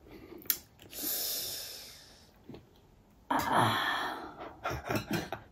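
A person breathing out twice close to the microphone, each airy breath lasting about a second and the first fading away, with a few small mouth clicks near the end.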